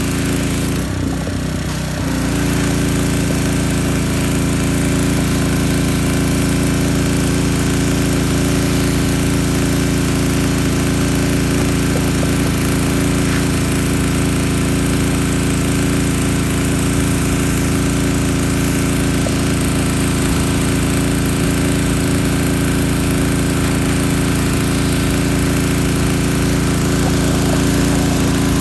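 Gas pressure washer running steadily, its small engine humming under the hiss of the spray. The sound dips and thins for a moment about a second in, then comes back fuller and holds steady.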